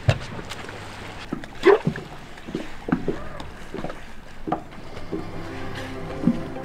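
A pod of spinner dolphins surfacing and breathing: a string of short, sharp puffs from their blowholes, irregular, one every second or so.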